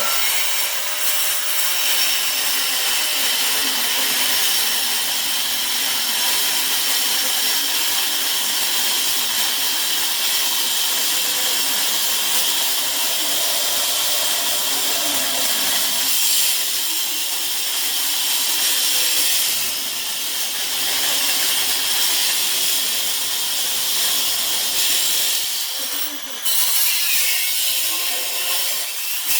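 Power tool with a blade cutting steadily through the thick steel wall of a safe, with a brief drop near the end.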